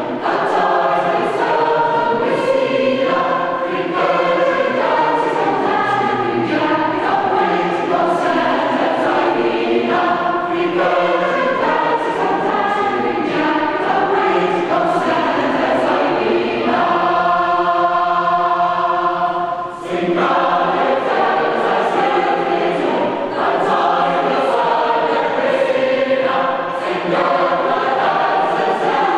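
Large mixed choir singing unaccompanied in harmony, with a chord held for about three seconds past the middle of the passage, a brief break, and then the singing going on.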